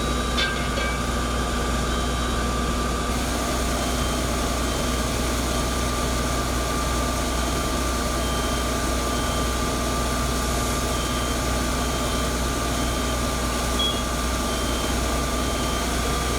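Fire truck engine idling steadily, a low rumble with a constant hum, while a short high beep repeats every second or two.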